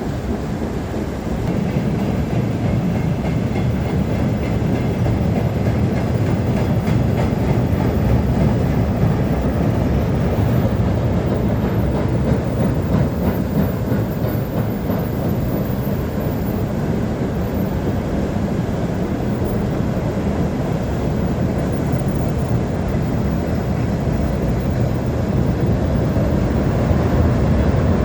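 Railway wheels running along the track: a steady rumble with the clatter of the wheels on the rails, a little louder from about a second and a half in.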